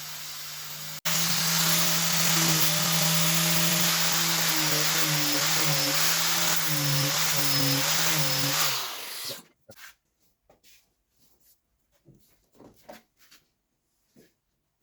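Electric power tool motor running loud and steady, its pitch dipping briefly several times as if loaded, then winding down and stopping about nine seconds in. Faint scattered clicks and handling noises follow.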